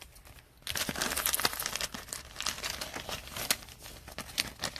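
Trading card pack wrapper crinkling and tearing as it is handled and opened. A dense run of irregular crackles starts about a second in.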